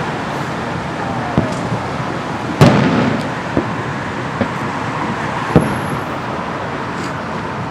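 Distant fireworks going off: about five sharp bangs, the loudest about two and a half seconds in with an echoing tail, over a steady background noise.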